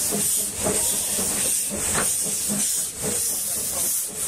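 Narrow-gauge steam locomotive moving off, giving a loud hiss of escaping steam that pulses in a regular rhythm as it passes.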